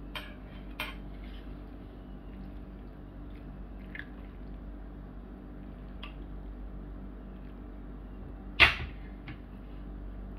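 Metal spoon stirring macaroni and cheese in a glass bowl: a few scattered light clinks of spoon on glass, with one sharper, louder clink near the end, over a steady low hum.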